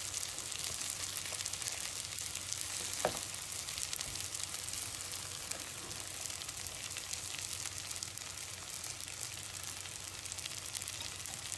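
Bulgur frying with tomato and oil in a nonstick pan, sizzling and crackling steadily as a silicone spatula stirs it. A short squeak sounds about three seconds in.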